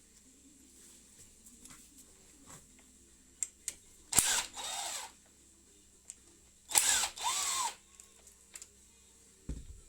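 A handheld power drill run twice in short bursts of about a second each, its motor pitch rising and falling, with small clicks between and a low thump near the end.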